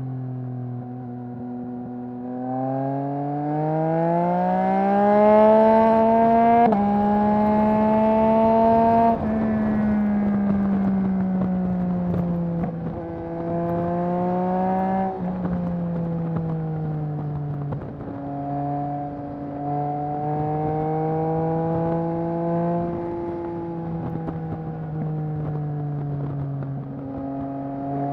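2021 Yamaha MT-09's three-cylinder engine through a Mivv full-system exhaust, pulling hard. The pitch climbs, drops sharply at a quick upshift about seven seconds in, climbs again, then falls away as the throttle closes. It rises and shifts once more, then settles into a steadier cruise.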